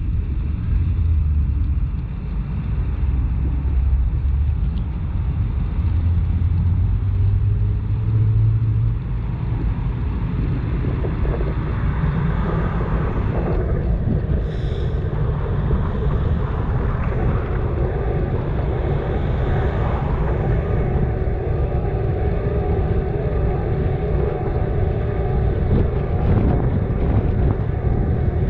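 Steady low rumble of a bicycle commute through city traffic: road and wind noise on the riding camera's microphone, with motor vehicles running close by. A low tone climbs over the first several seconds, and a brief high ring sounds about halfway through.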